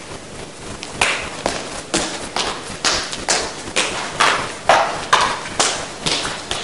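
Sharp percussive strikes in a steady rhythm, about two a second, beginning about a second in.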